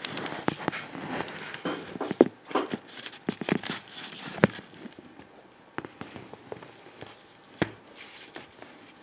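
Handling noise from a camera being picked up and turned: a run of clicks, knocks and rustling, busiest in the first half, with a few sharper knocks later on.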